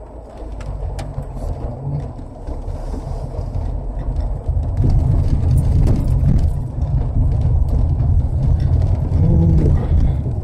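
Car cabin noise while driving over a wet, potholed road: a low rumble of engine and tyres that grows louder about halfway through, with the hiss of tyres on wet tarmac and scattered light knocks and clicks.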